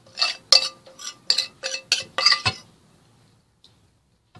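Metal spoon clinking and scraping against a metal baking tray while spooning marinade over chicken pieces: about eight short ringing clinks in quick succession, stopping about two and a half seconds in.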